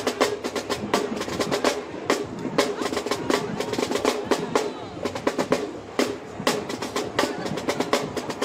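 Marching band drumline playing a fast cadence of sharp, rapid snare and drum strokes.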